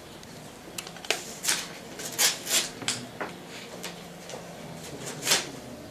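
Paper rustling and crinkling in a string of short, sharp bursts as a sealed bid envelope is opened and its sheet handled.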